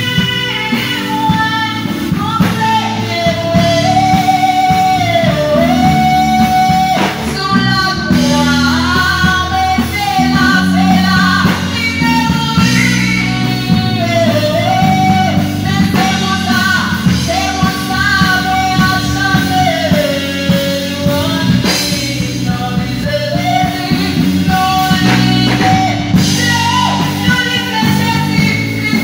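Haitian Creole gospel song: a lead voice singing a melody over instrumental accompaniment.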